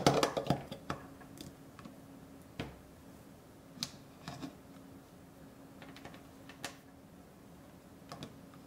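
Hard plastic clicking and clatter as a Sony NP-FZ100 battery pack is pushed and snapped into a Newmowa dual charger's bay. The clicking is loudest in the first half-second. A handful of single light clicks and taps follow over the next several seconds as the charger is handled.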